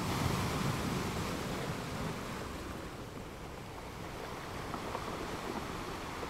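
Small sea waves breaking on a sandy shore, with the foam washing up over the sand. One wave breaks loudly in the first two seconds, then the wash eases and carries on more softly.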